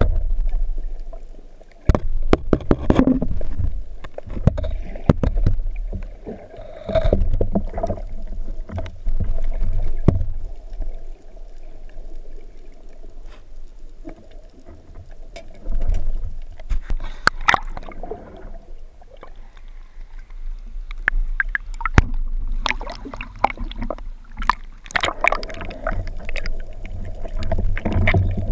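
Underwater water noise heard through a waterproof camera housing: a low, muffled rushing and sloshing of water as a spearfisher swims at and just below the surface, broken by scattered sharp knocks and clicks of gear against the housing.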